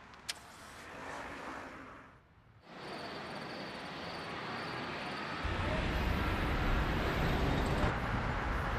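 Street traffic ambience: a single click just after the start, then a steady hum of traffic that swells about five and a half seconds in with the heavier low rumble of a passing vehicle.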